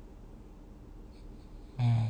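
Person snoring while dozing: a quiet pause between breaths, then a loud, pitched snore starts near the end.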